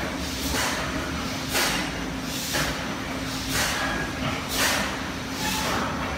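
Disco turntable amusement ride running empty: a rhythmic hiss that surges about once a second over a steady machine hum.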